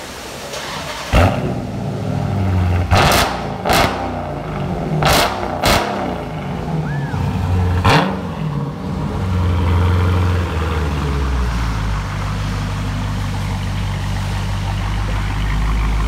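2016 Dodge Charger 392's 6.4-litre HEMI V8 with a muffler delete, blipped in about six quick revs over the first eight seconds, then settling to a steady, low idle. It has a little raspiness at high revs.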